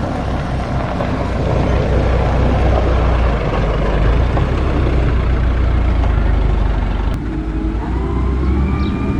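Motor grader's diesel engine running steadily with a deep drone under a coarse, gritty noise. About seven seconds in the sound changes abruptly and steady whining tones join the engine.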